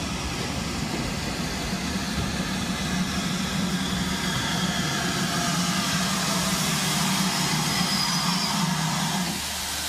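GWR Hall class steam locomotive No. 5972 Olton Hall running slowly. A steady hiss of steam sounds over a low rumble, and the rumble drops away about nine seconds in.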